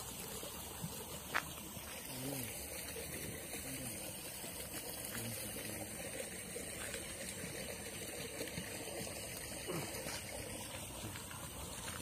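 Water trickling steadily, with an even high hiss above it and one sharp click about a second and a half in.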